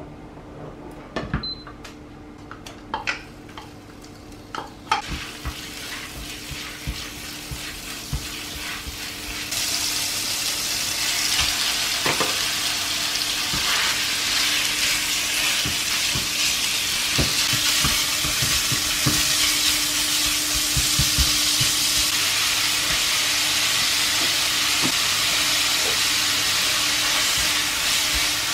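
A few sharp clinks of the pan and spatula, then minced meat sizzling in hot oil in a non-stick pan as it is stir-fried with a spatula; the sizzle grows and becomes a loud steady hiss about ten seconds in, with the scrape and tap of the spatula through it. A faint steady hum sits underneath.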